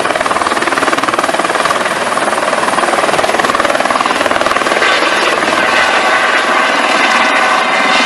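A Eurocopter EC130 helicopter lifting off: the main rotor beats rapidly and steadily over the running turbine. A higher whine comes up about halfway through as it climbs away.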